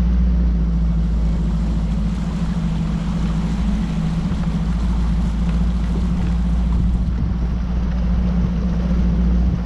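Bass boat's outboard motor running steadily at high speed, with a constant low drone under the rush of wind and water.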